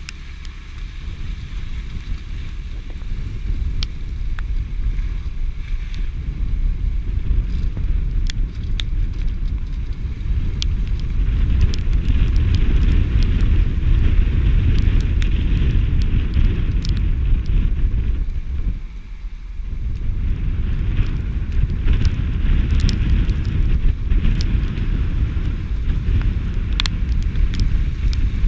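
Wind rumbling over the microphone of a camera mounted on the outside of a moving vehicle, mixed with vehicle and tyre noise on a wet trail. Scattered small ticks run through it. The rumble drops briefly about two-thirds of the way through.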